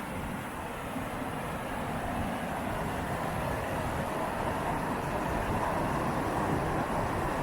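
River water rushing through rocky rapids: a steady, dense rush that grows slightly louder over the first few seconds.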